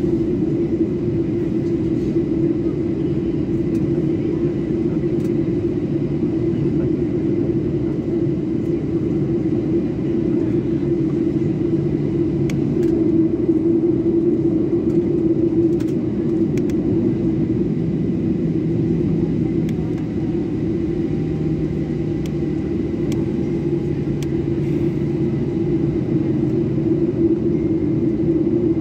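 Steady engine drone and rumble of a Boeing 737-800's CFM56 engines, heard from inside the passenger cabin while the airliner taxis on the ground.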